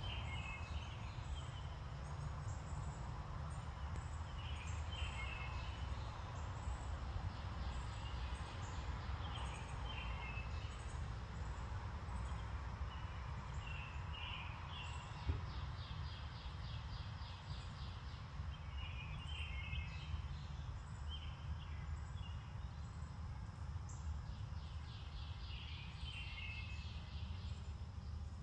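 Songbirds chirping in short phrases at intervals, with a rapid, evenly pulsed trill a few times, over a steady low rumble of outdoor background noise. A single faint click sounds about halfway through.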